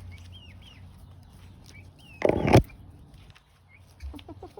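Backyard chickens clucking, with short high chirping calls near the start. A little over two seconds in comes one loud, short burst of noise, the loudest thing here.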